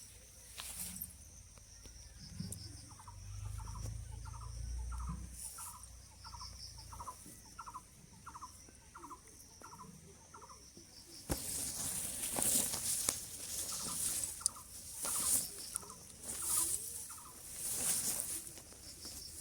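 Birds chirping in a garden. One repeats a short, falling note about one and a half times a second in two runs, over higher, thinner chirps. About halfway through, a louder rustling hiss comes up underneath.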